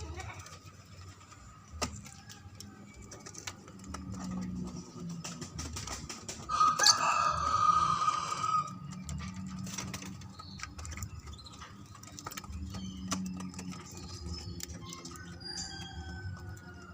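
A bird's loud call lasting about two seconds, midway through, with scattered ticks and fainter calls around it.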